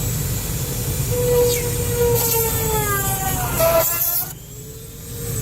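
Dremel rotary tool whining at high speed as it cuts through a plastic interior panel. The pitch wavers and then sags sharply as the bit loads up, it cuts off about four seconds in, and it spins up again more quietly near the end.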